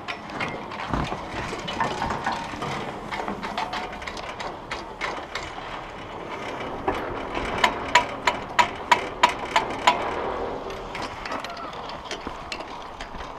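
Fixed-grip triple chairlift, built by SACIF in 1984, running with a steady mechanical clicking and rattling. Around the middle, the chair's grip runs over the rollers of a line tower's sheave assembly, giving a run of about eight sharp clacks at about three a second.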